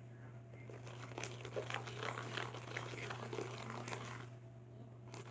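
Sticky, unactivated slime mixture being stirred, with wet squelching and clicking from about a second in to near the end, over a steady low electrical hum.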